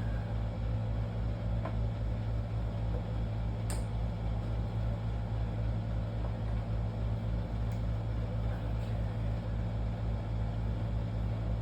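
A steady low mechanical hum runs throughout, with three faint, sharp light clicks scattered through it.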